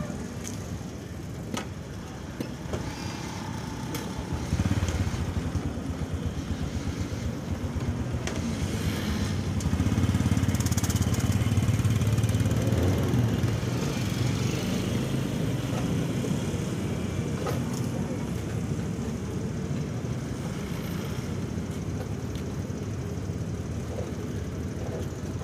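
Motorcycle traffic running on the road beside the stall, a steady engine rumble that grows louder about four to five seconds in and is loudest around ten to thirteen seconds in as machines pass close.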